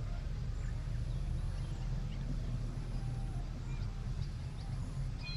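A steady low rumble with faint, scattered bird chirps over it.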